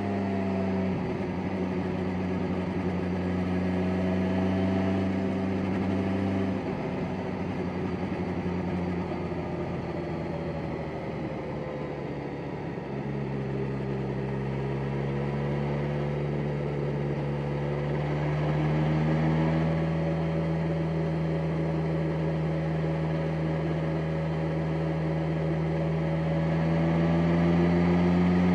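BMW S1000XR's inline-four engine pulling smoothly at low revs in sixth gear, under a steady rush of wind and road noise. The engine note dips and turns uneven for a few seconds around the middle, easing off the throttle, then climbs slowly towards the end as the bike picks up speed.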